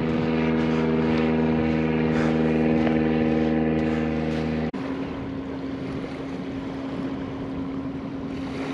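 A steady engine hum that drones evenly, changing suddenly to a different steady hum a little over halfway through.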